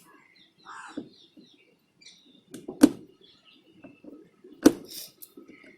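Small clicks and rattles of hard plastic air filter box parts and a screw being handled and fitted, with two sharp knocks, about three seconds in and near the end.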